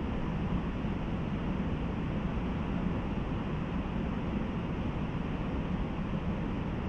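Waterfall's falling water making a steady rushing noise.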